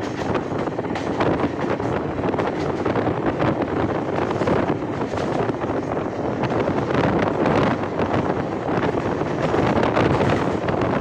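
Wind rushing hard over the microphone from the open side of a moving passenger train, over the steady running noise of the coaches on the rails.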